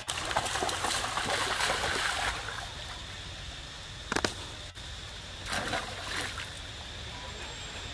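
Water splashing and trickling in two bursts, the first lasting about two seconds and the second shorter, with two sharp clicks in between.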